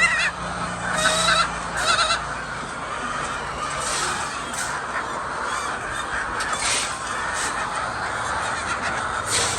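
Flock of hens calling together in a steady chatter, with a few louder squawks in the first two seconds.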